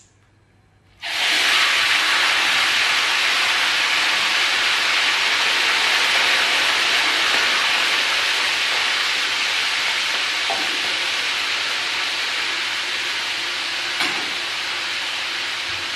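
Hot cooking oil in a wok bursting into loud sizzling about a second in as eel goes in to deep-fry, then sizzling steadily on. One short clank near the end.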